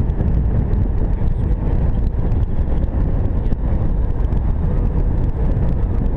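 Wind buffeting the microphone on an exposed hillside: a steady low rumble with no pitch.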